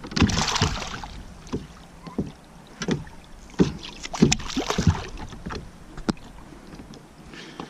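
A big bass being landed into a kayak: two spells of water splashing, one at the start and another about four seconds in, with scattered knocks and thumps against the hull.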